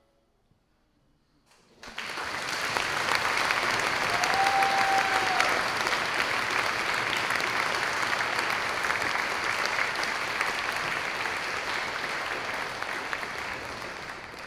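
Audience applause that breaks out suddenly after about two seconds of near silence and continues as steady clapping. A single short whoop from the crowd rings out about four seconds in.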